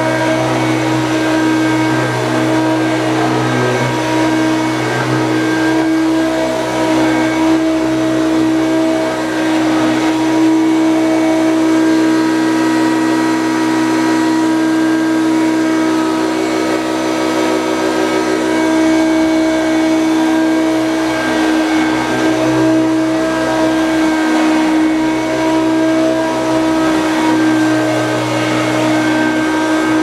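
Hoover Turbopower U1050 upright vacuum cleaner running, pushed back and forth over carpet; its motor gives a steady, even whine.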